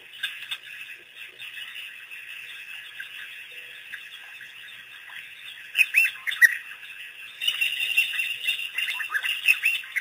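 African wild dogs twittering: bird-like, high-pitched chirps, in a quick cluster about six seconds in and a denser run from about halfway through the last third. A constant high-pitched background chorus runs underneath.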